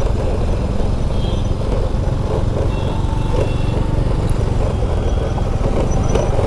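Scooter engine running at low speed with a steady low rumble, the scooter bumping along a rough dirt road shoulder. A few faint, brief high tones sound in the background traffic.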